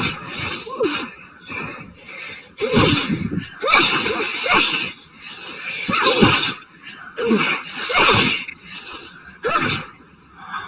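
A woman's sneezing fit: a string of loud sneezes about one to two seconds apart, with sharp, wheezy breaths drawn in between. It is an allergic reaction to pollen, which she suspects is a new grass allergy.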